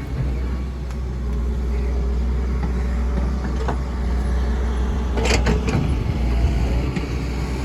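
Doosan DX140W wheeled excavator's diesel engine running steadily under work, with a brief clatter of several sharp knocks about five seconds in.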